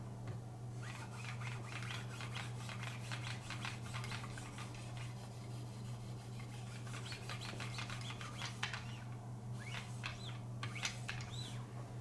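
Quick, repeated rubbing and scraping strokes along a knife blade clamped in a guided sharpener, in two runs with a pause between, over a steady low hum.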